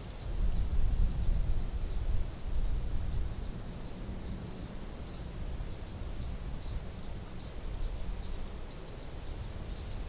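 Insects chirping in a steady, even rhythm, about two or three short high chirps a second, over a low rumble on the microphone that is loudest in the first few seconds.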